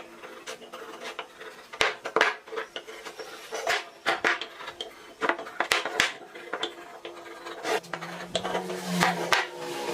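Irregular knocks and clicks of wood and tools being handled in a woodworking workshop, with some scraping between them.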